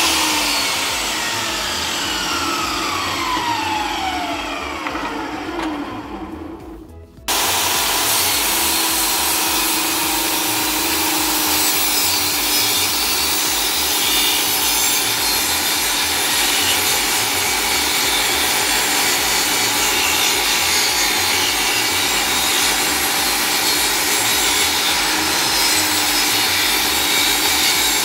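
Portable table saw motor winding down with a falling whine over the first several seconds. Then, after a sudden jump in level, the saw runs steadily while ripping a long wooden strip along its fence.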